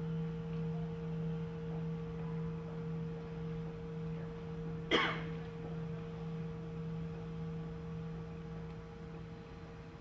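A struck singing bowl rings a deep, steady tone that slowly fades. About halfway through, a single sharp metallic strike rings briefly over it.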